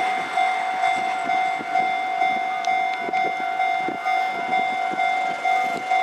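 Japanese level-crossing warning bell ringing, a steady electronic ding about twice a second, over the low rumble and occasional wheel-on-rail clicks of a two-car KiHa 11 diesel railcar set rolling slowly through the crossing.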